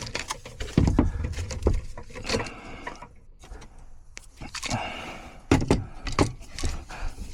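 Irregular clicks and knocks with some rustling as a 60-amp circuit breaker is handled and worked at an electrical disconnect box.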